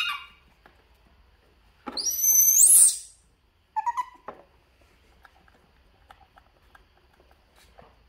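Baby macaque's high-pitched, bird-like squealing calls as it begs for food: a loud call about two seconds in that rises in pitch and lasts about a second, then a short, lower call about four seconds in.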